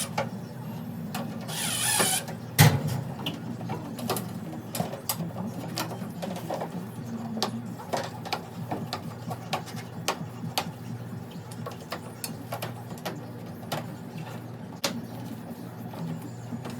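Mechanical work noises on a washing machine being reassembled after a drain pump change. A short whirring spin comes about a second and a half in, then one loud knock, then scattered light clicks and rattles of parts, all over a steady low hum.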